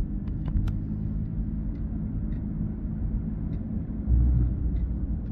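Steady low road-and-engine rumble inside a moving car's cabin, with a brief louder low surge about four seconds in.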